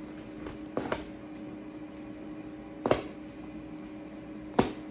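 Hot oil spitting in a pan of frying chicken wings: three sharp pops over a steady low hum.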